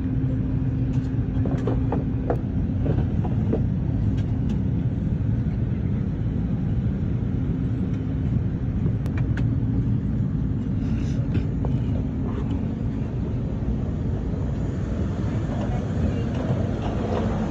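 Steady low rumble of an Airbus A380's cabin at the gate, with a constant hum underneath. A few light clicks fall in the first few seconds and again around the middle.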